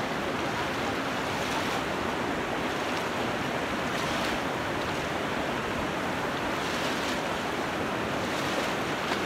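Steady rush of water in a small creek running high and fast after heavy rain.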